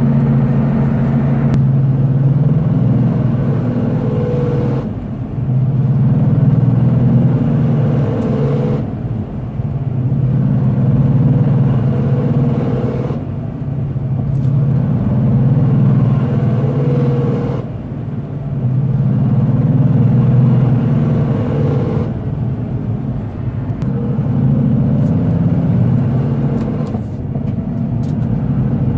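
A car making a steady pitched hum that swells and fades in a regular cycle about every four seconds. The noise has not been cured by a new transmission, driveshaft, rebuilt differential or new rear suspension arms.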